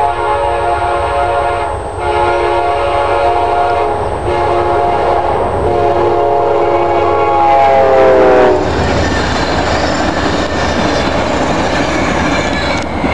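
Amtrak GE P42DC diesel locomotive's air horn sounding for a road crossing in a series of long blasts, the last one dropping in pitch as the locomotive passes. It is followed by the rumble and rail clatter of passenger cars rolling by.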